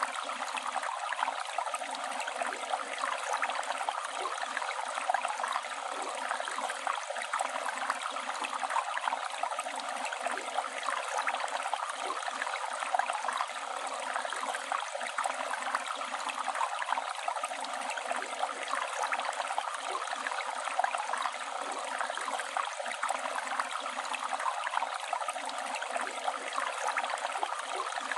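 Flowing river: a steady, even rush of running water with a fine, flickering texture and almost no low rumble.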